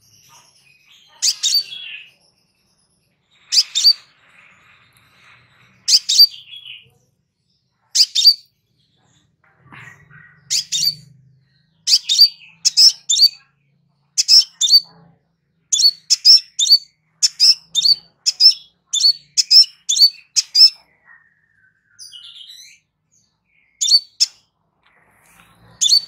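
Crimson sunbird giving short, sharp, high chirps, at first about every two seconds, then in a quicker run of about two a second through the middle, thinning out again near the end.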